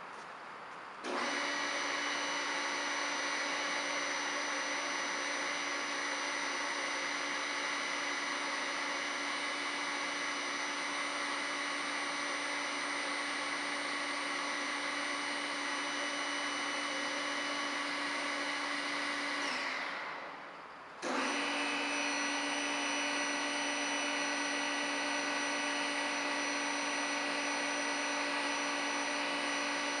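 Electric motor of an ELB 14" x 36" hydraulic surface grinder, started from the push-button panel and running with a steady whine. About two-thirds of the way through it is switched off and winds down with falling pitch, then starts again a second later and winds down once more at the end.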